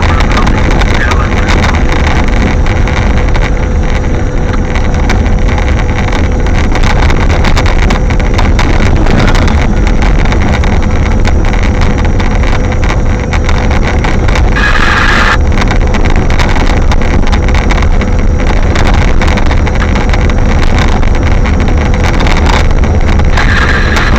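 High wind buffeting the microphone: a loud, continuous rumbling roar with gusty unsteady texture.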